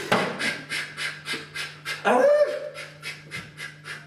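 A man panting quickly and rhythmically through the mouth, about four breaths a second, with one short voiced whine about two seconds in.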